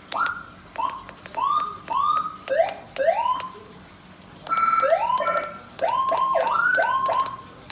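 Electronic vehicle siren blipped from a Whelen HHS handheld controller: short rising whoops, each climbing in pitch and cutting off, about six in the first three and a half seconds. After a brief pause come two longer stretches of quick rising sweeps one after another.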